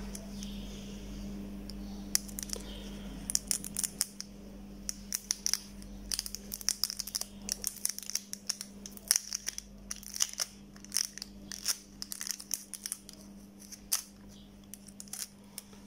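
Faint, irregular clicks and crinkles of metal tweezers picking at and peeling the yellow insulating tape at the connector end of a lithium-ion pouch phone battery, over a steady low hum.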